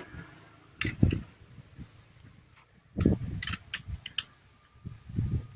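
Short metallic clicks and knocks of hand tools on a motorcycle engine's cap nuts and bolts during reassembly, coming in small clusters about a second in, around three seconds in and near the end.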